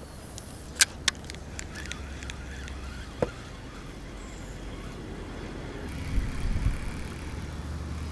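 Fishing tackle being handled while a spinner lure is put on the line: two sharp clicks about a second in and another a couple of seconds later. A low rumble runs underneath, with heavier low thumps near the end.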